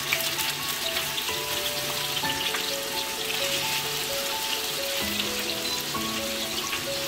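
Soft tofu blocks sizzling and crackling steadily in hot oil in a frying pan, with a light melody of background music over it.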